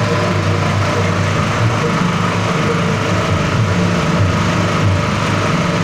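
Small single-cylinder petrol engine running steadily as the stationary power unit of a wet-and-dry feed mixer, coupled to it by a belt and gearbox.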